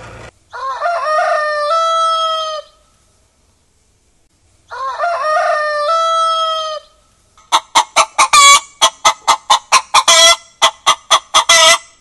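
Rooster crowing twice, each crow ending on a long held note. It is followed by a fast run of loud chicken clucks, about four or five a second.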